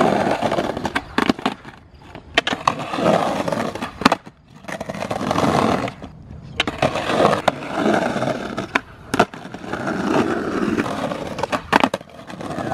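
Skateboard wheels rolling over rough stamped concrete in several separate runs, with sharp clacks as the board slaps and knocks against the ground.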